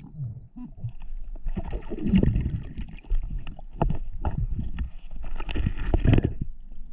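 Stream water sloshing and gurgling, with irregular knocks and bumps from wading and moving in the water.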